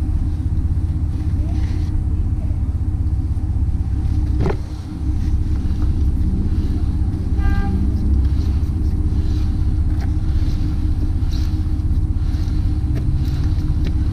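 Steady low mechanical rumble with a constant hum, the heavy background noise of a running vehicle engine nearby. A brief click comes about four and a half seconds in, and a short high chirp a few seconds later.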